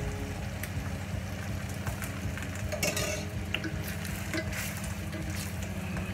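Spaghetti being stirred and tossed in a sizzling tomato sauce with a slotted spoon and a wooden spoon, the utensils clicking and scraping in an enamelled cast-iron pot, with a brief louder hiss about three seconds in. A steady low hum runs underneath.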